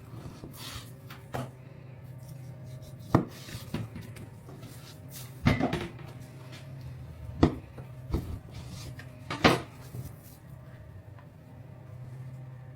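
Kitchen utensils knocking and clattering: several sharp knocks, the loudest about every two seconds, over a steady low hum.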